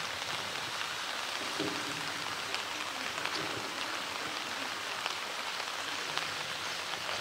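Rain falling steadily, with scattered light ticks of single drops.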